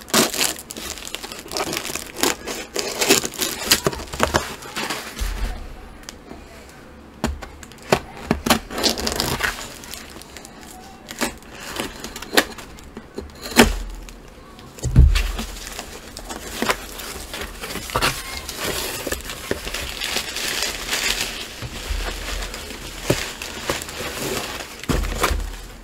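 Brown kraft-paper mailer being handled and opened: continuous crinkling and rustling of the paper, with many small crackles and a few dull thumps of the package against the table, the loudest about halfway through.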